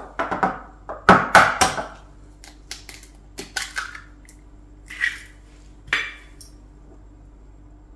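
An egg knocked several times against the rim of a small glass bowl to crack it, followed by lighter, scattered clinks of eggshell and a spoon on the glass.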